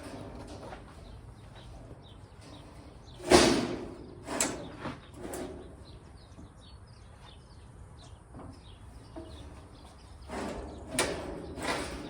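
Heavy metal clanks and knocks as the steel roll cage of a mini skid steer is rocked and shifted on its mounts: three knocks in the first half, the first the loudest, then a quicker cluster of four near the end.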